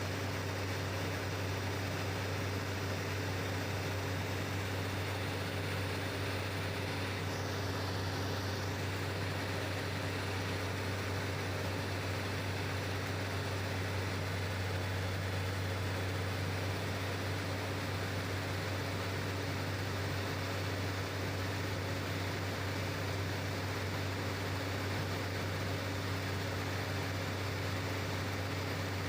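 Heavy excavator diesel engine running steadily with a low, even hum.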